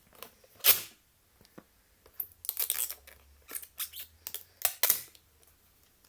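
Card pieces and packaging being handled: short rustles and scrapes, one sharp rustle under a second in, then a run of them through the middle.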